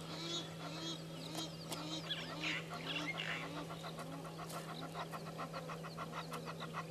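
Outdoor bushveld chorus of calling birds: a low short note repeating about twice a second for the first few seconds, scattered higher chirps and trills, and a fast, even run of chirps through the second half, over a steady low hum.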